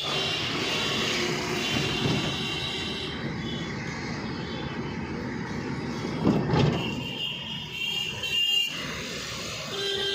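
Busy street traffic heard from inside a moving taxi: steady engine and road noise, with a louder knock about six and a half seconds in.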